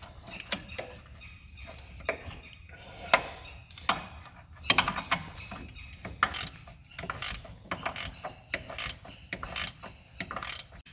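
Ratchet wrench clicking as bolts are backed off to slacken the hydraulic pump mount: scattered clicks at first, then quick runs of clicks through the second half.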